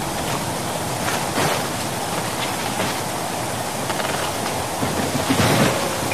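A storm's wind and heavy rain making a steady rushing noise, which swells briefly about a second and a half in and again near the end.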